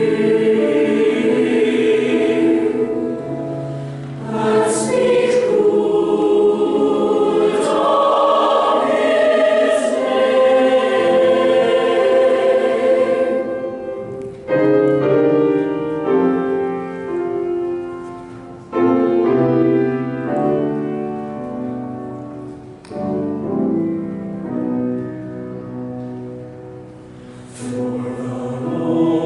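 Large mixed choir of men's and women's voices singing in harmony, with quieter stretches and two sudden loud entries about halfway through.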